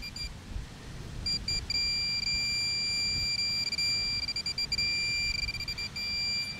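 Minelab Pro-Find pinpointer sounding a high electronic beep. It chirps in short bursts about a second in, then holds one steady tone for several seconds and breaks into quick stutters near the end, signalling a metal target, here a small coin, right at its tip.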